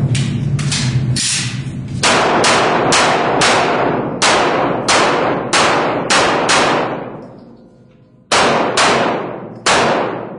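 Rapid handgun fire on an IPSC stage: quick strings of pistol shots, about three a second, each with a ringing tail. The firing breaks off for a little over a second past the middle, then resumes with a few more shots near the end.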